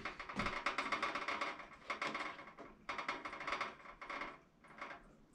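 Light, irregular clicking and scraping of a brass propane regulator being turned and screwed into the fitting on a Coleman Classic two-burner stove.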